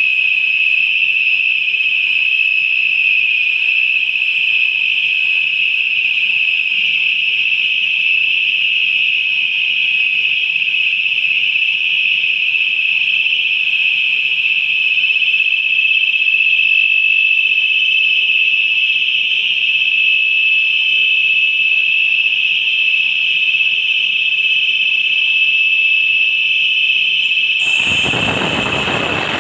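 Steady high-pitched whistle from a liquid-oxygen tank trailer's unloading valves and piping while the cargo is transferred. Near the end a loud rushing hiss cuts in as cold vapour vents at the valve cabinet.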